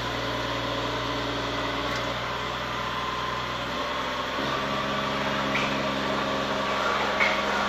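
Snowcat grooming machine's engine running steadily, heard from inside its cab; about halfway through, the engine note steps up to a higher pitch.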